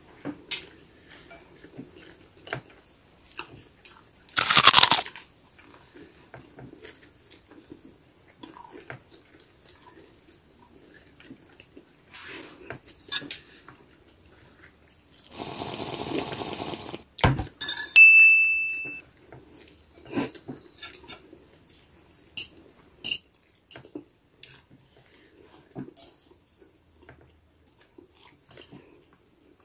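Close-miked eating: crackly bites and chewing of toasted bread with scattered small clicks, and a louder crunch about four seconds in. About halfway through comes a long sip from a glass mug of milky coffee.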